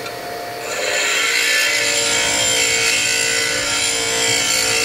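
A DeWalt DW758 bench grinder running with a steady hum; under a second in, a square steel lathe tool bit is pressed against the wheel and a loud grinding hiss with a high ring sets in and holds steady.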